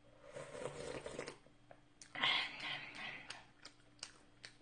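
Sipping and slurping spicy shrimp ramen broth from a bowl: soft sips in the first second, then a louder hiss about two seconds in, followed by a few small clicks.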